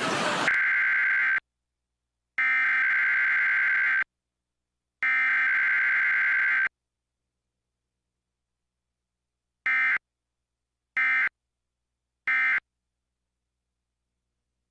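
Specific Area Message Encoding (SAME) digital data bursts from NOAA Weather Radio's Required Weekly Test: three buzzy header bursts of under two seconds each, about a second apart, then after a pause three short end-of-message bursts.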